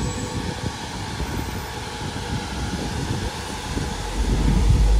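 Vehicle running past with a steady rumble; a heavier, louder low rumble builds about four seconds in.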